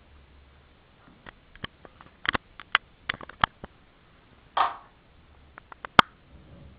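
Handling noise close to the microphone: a run of sharp clicks and taps from fingers working a small hard object, a short rustle about halfway through, and one loud click near the end.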